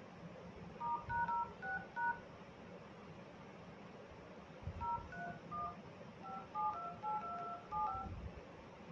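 Vivo Y20s smartphone's dialer sounding DTMF touch-tone beeps as a phone number is keyed in: a short run of key beeps about a second in, then a longer run from about five seconds in.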